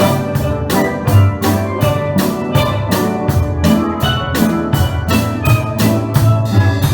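A steel pan band playing a tune, many pans sounding pitched notes together, with a drum kit keeping a quick, steady beat.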